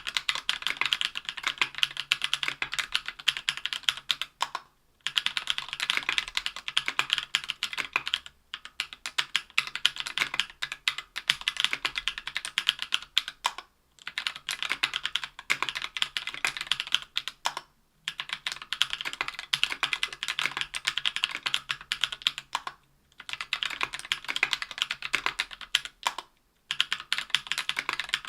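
Fast, steady typing on a Tofu 60% aluminium keyboard with an aluminium plate and GMK keycaps, fitted with Durock Anubis 65 g tactile switches lubed with Krytox 205g0. The keystrokes come in a dense run of clicks, broken by short pauses every four seconds or so.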